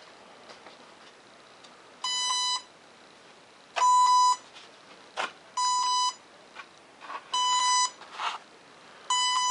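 An electronic beeper sounding five identical beeps, each about half a second long at one steady mid pitch, repeating about every two seconds. A few short rustles and knocks come between the beeps.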